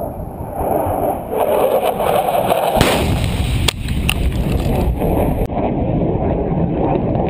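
Air-dropped bomb exploding on a target range: a rushing noise swells, then a sharp blast about three seconds in, a second crack about a second later, and a continuous rumble afterwards.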